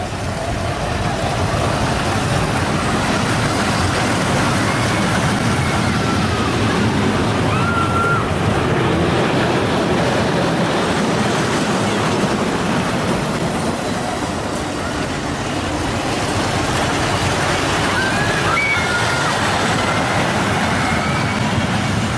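Small family roller coaster train running along its steel track in a steady rumble, with a few short shouts from the riders now and then.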